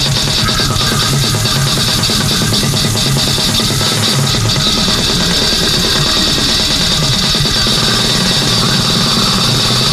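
Extreme metal recording: very fast, dense drumming with a steady cymbal wash over low guitar and bass, loud and unbroken.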